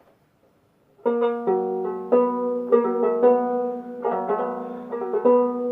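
Four-string Kmise banjolele (banjo-ukulele with a drum head) plucked repeatedly as it is tuned up, not yet in tune: a run of ringing notes starting about a second in.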